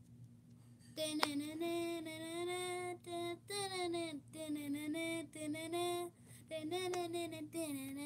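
A young girl's voice singing unaccompanied in short phrases of held, wavering notes, starting about a second in after a near-quiet moment.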